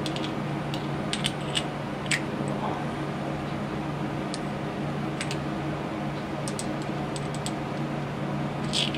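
Light, irregular clicks and taps of small metal and plastic compressor parts being handled and fitted together by hand during reassembly of a 12-volt air compressor. A steady low hum runs underneath.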